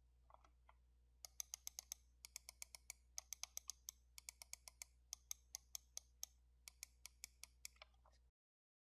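Omron D2FC-F-7N mouse microswitch being clicked over and over: a few faint clicks, then a quick run of sharp clicks, about four or five a second, over a low steady hum that cuts off near the end.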